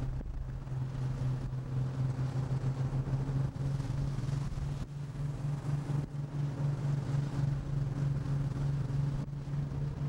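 Boat's diesel engine droning steadily with a pulsing beat, over a hiss of wind and sea.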